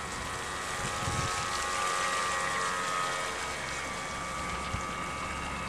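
Vintage Nor-Star model boat running at speed: a high electric-motor whine over the hiss of water off its hull, swelling about a second in as it passes close, then easing.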